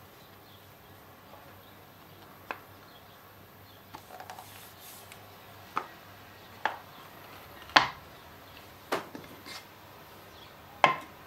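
Light wooden knocks and clicks of a reclaimed rimu card box being handled, its lid and parts set down and fitted: about eight separate taps spread over several seconds, the loudest a little past the middle.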